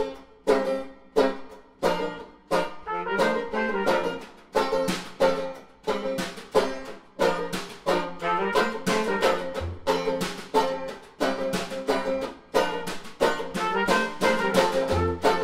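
Trad jazz band playing: a banjo strums steady, evenly spaced chords, and brass instruments come in with sustained melody lines about three seconds in.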